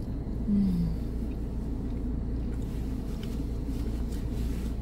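Steady low hum inside a parked car, with a person chewing a mouthful of pizza and one short falling "mmm" hum about half a second in.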